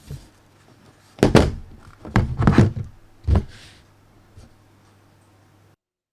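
Several knocks and rubbing thumps of the power bank's packaging being handled, with a steady low electrical hum underneath. The audio cuts off suddenly near the end.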